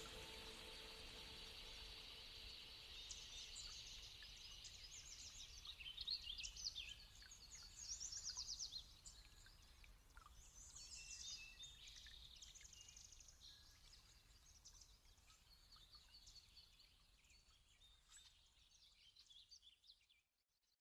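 Wild birds chirping and trilling, a string of short high calls that is loudest about six and eight seconds in, then thins out and fades away just before the end.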